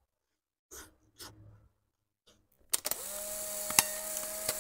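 Two soft mouth sounds of eating by hand, then a sudden loud electronic title-card sound effect: a dense hissing rush with a steady hum and two sharp clicks, dropping away near the end.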